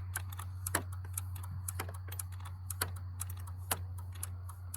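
Irregular light clicking of a ratchet working at the battery terminal, with a few sharper clicks about once a second, over a steady low hum.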